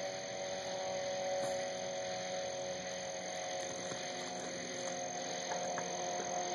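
A toad calling with its throat sac inflated: one long, steady, low-pitched call.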